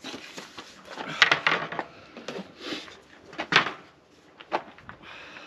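Handsaw cutting through a board of 12 mm wooden cladding on a workbench, in short strokes roughly a second apart.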